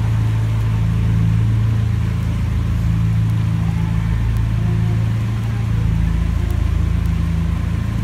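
Widebeam canal boat's engine running steadily at low speed inside a concrete tunnel, a constant low hum.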